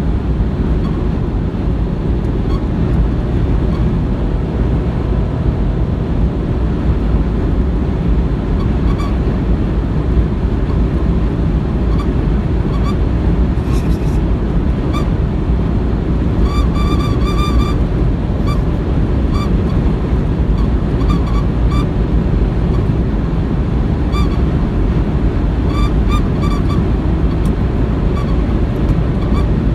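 Honda N-Box driven at speed, heard from inside the cabin: steady road and engine noise with short, high-pitched beeping squeaks ("pee-pee") from the front of the car. The squeaks come and go, turning up about a third of the way in and bunching into a quick run a little past halfway. It is an abnormal noise that appears above 60 km/h and whose cause the owner does not know.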